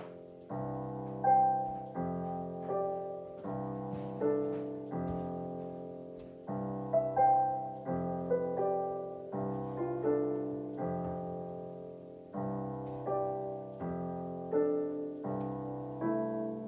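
Solo piano playing slow, bell-like chords, each struck and left to ring and fade before the next, about one or two strikes a second.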